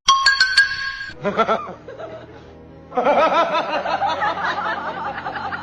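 A short run of chime-like tones, then music with laughter over it.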